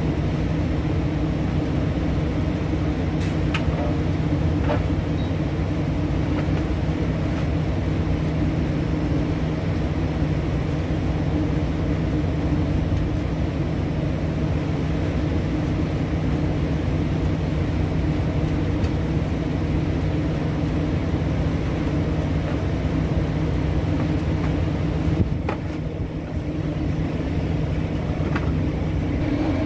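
Steady drone of rooftop exhaust fans and HVAC units running, a constant low hum, with a couple of faint clicks near the start.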